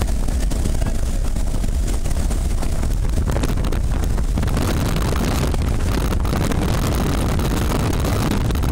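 Steady, loud rush of wind and engine drone of a small high-wing jump plane in flight with its door open, the airflow buffeting the microphone. The noise thickens a little about halfway through.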